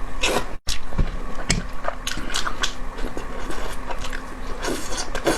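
Close-miked eating: repeated bites and chewing of food, heard as a string of short, sharp clicks.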